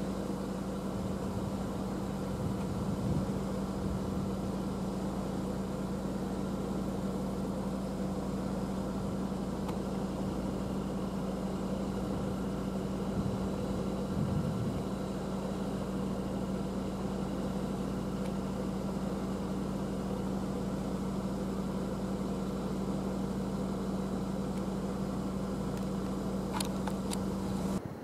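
Large wind turbine running, heard from near its base: a steady machine hum with one strong low droning tone and fainter higher tones above it.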